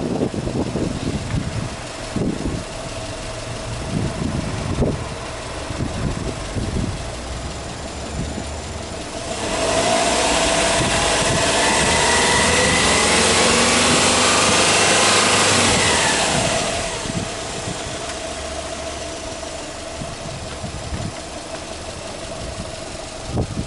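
Subaru Legacy Touring Wagon 2.5GT's turbocharged EJ25 flat-four idling with the bonnet open. About nine seconds in it is revved up, held high for several seconds, and let fall back to idle about seventeen seconds in.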